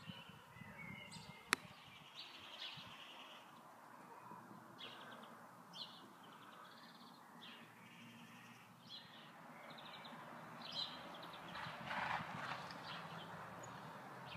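Small birds chirping in short scattered calls over faint, steady outdoor background noise, with a single sharp click about one and a half seconds in.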